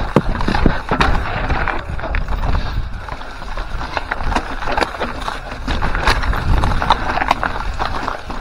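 Mountain bike descending rocky singletrack: tyres crunching over stones and gravel, with the bike rattling and many sharp knocks as it hits rocks.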